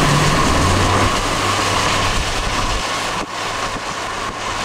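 Steady road and wind noise of a car driving at speed, heard from inside the cabin, with a faint steady whine above it. The engine's low hum fades about three seconds in.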